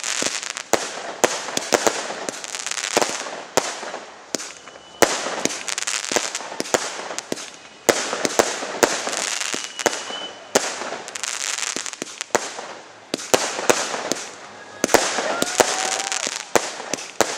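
Fireworks display: aerial shells bursting in quick succession, with sharp bangs about once or twice a second, each followed by a hissing crackle of burning stars.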